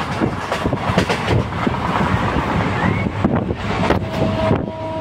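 A passenger train running, heard from inside the coach at an open window: wind buffeting the microphone over a constant rattle and clatter of the carriage. A steady high tone comes in near the end.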